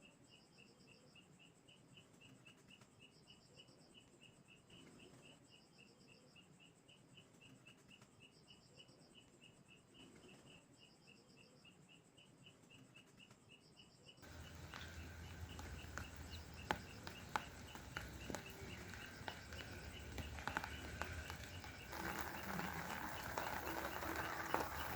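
Night insects chirping in a steady high pulse, about four or five chirps a second, with short higher trills every couple of seconds. About halfway through, a louder background comes in, with a low hum, a hiss and scattered sharp clicks.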